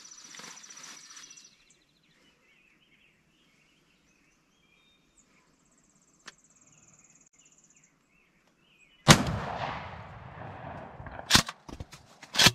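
A single shotgun blast, sudden and very loud, about nine seconds in, with an echoing tail that dies away over about a second: the shot fired at a wild turkey gobbler. Two or three sharp clicks follow near the end.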